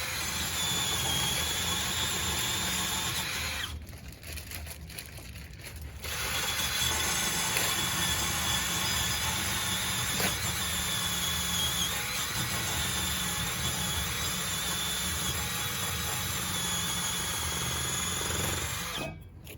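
Steady, loud machine noise with a thin high-pitched whine, cutting out for about two seconds about four seconds in and again near the end.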